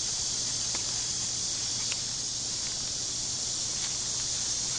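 Steady high-pitched drone of an outdoor insect chorus, with a few faint small clicks.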